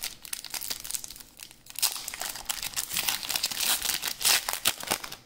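Foil wrapper of a Pokémon Scarlet & Violet booster pack crinkling and tearing as it is opened. A dense run of crackles gets louder about two seconds in.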